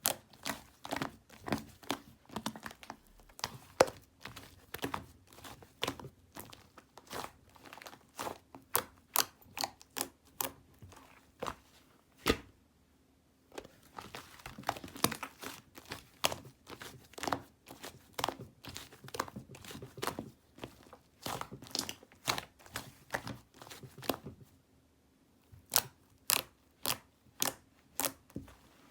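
Hands squeezing and stretching a thin, sticky slime, making irregular wet clicks and pops several times a second, with two brief pauses.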